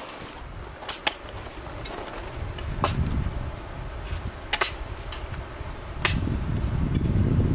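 Sharp strikes of a digging tool, about five, one every one and a half to two seconds, while digging out a banana plant. Wind rumbles on the microphone underneath and grows louder from about two seconds in.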